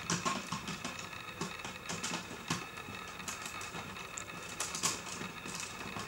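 Lego bricks clicking and rattling in the hands as a Lego puzzle box is put back together: scattered small clicks at an irregular pace.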